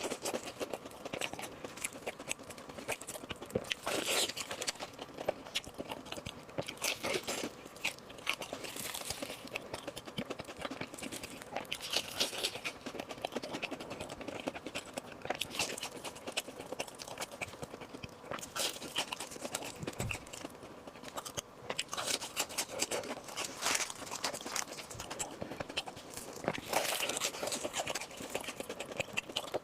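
Close-miked eating: crunchy bites and chewing, with a louder burst of crunching every few seconds.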